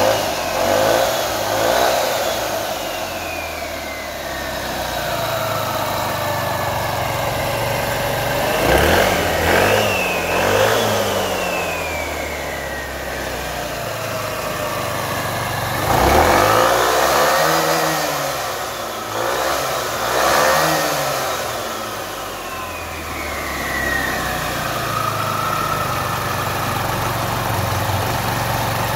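SYM Joymax 125 scooter's single-cylinder engine running with the CVT cover off, revved up and down several times so the variator, drive belt and clutch pulley spin up. Each throttle blip is a rising then falling whine, with steadier running between.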